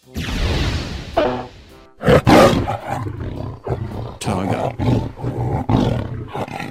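A short burst of noise, then a tiger roaring and growling in repeated rough pulses. The loudest roar comes about two seconds in.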